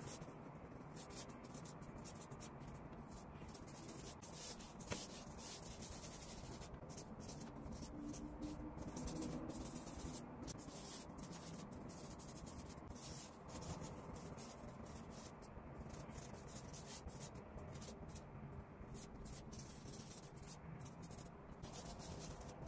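Felt-tip drawing pen stroking across paper in quick, irregular sketching lines, faint.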